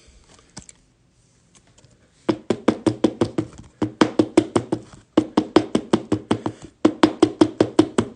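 Rapid hollow knocking like a wood block, about six strikes a second in runs broken by short pauses, starting about two seconds in.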